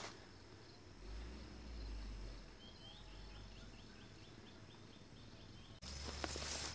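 Faint outdoor ambience: a small bird repeats a short chirp about three times a second for a few seconds, over a steady high insect tone. Near the end the sound cuts to a slightly louder ambience with a few light clicks.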